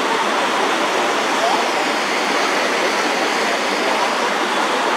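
Turbulent river white water rushing and churning close around a boat: a steady, even rush of water noise with no change in level.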